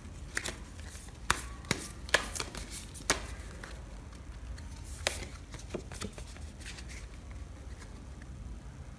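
A deck of paper message cards being shuffled and handled by hand: a string of sharp card snaps and taps, most in the first three seconds, with a few more around five and six seconds in.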